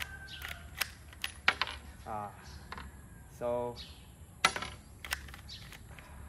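Sharp plastic clicks and clacks of a homemade paper rifle's action being worked by hand to clear a failure to eject, with a cartridge dropping out onto a wooden table.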